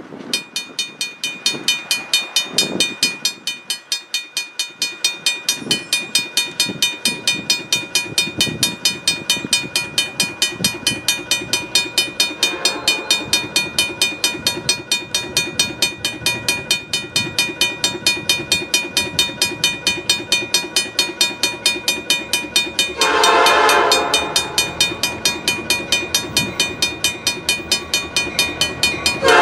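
Approaching diesel freight train led by a CN EMD SD75I locomotive, its air horn giving a faint short note midway, then a loud long blast near the end and another starting at the very end. Under it, a steady rapid ringing at about three strikes a second, typical of a grade-crossing warning bell.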